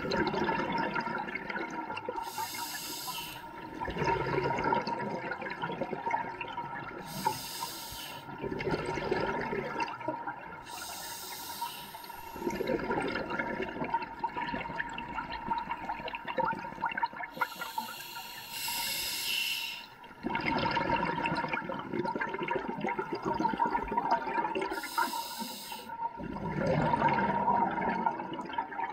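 Scuba diver breathing through an open-circuit regulator underwater. Each short, hissing inhale is followed by a longer rush of bubbling exhaled air, five breaths in all, one every five or six seconds.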